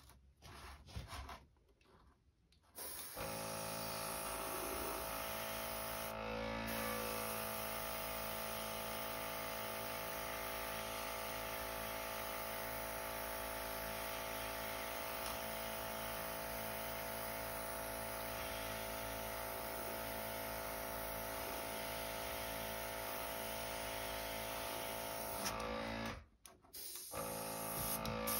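Airbrush compressor running steadily with a hum and air hissing through the airbrush, dropping out briefly near the end.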